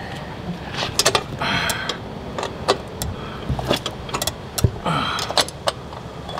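A hand wrench clicking and scraping on the metal mounting bracket and bolts of a motorcycle windshield as the bolts are tightened: a string of sharp metallic clicks, with two short rasping stretches about a second and a half in and again about five seconds in.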